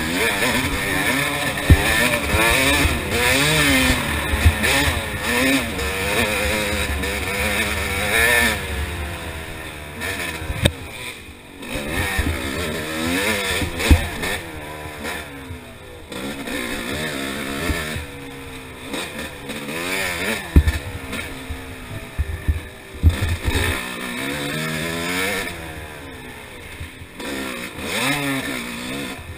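Yamaha YZ250 single-cylinder two-stroke dirt bike engine, revving hard and easing off again and again, its pitch rising and falling as the rider works the throttle through the trail. There are occasional sharp knocks from the bike over rough ground.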